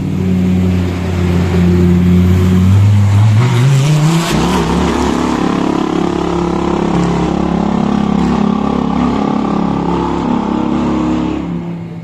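Lamborghini Huracán GT3 race car's V10 engine running at low revs, rising in pitch about four seconds in, then holding a loud, steady drone that eases off near the end.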